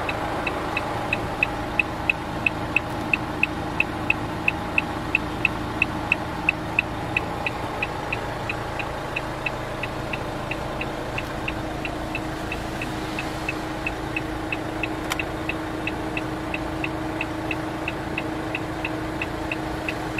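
Renault Master van's twin-turbo diesel engine idling steadily, heard inside the cab. Over it a high electronic warning beep from the dashboard repeats about two and a half times a second, loudest in the first several seconds.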